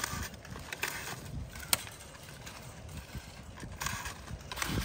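A single sharp snip of hand pruning shears a little under two seconds in, among brief rustles of grapevine canes and gloves being handled against the trellis wire.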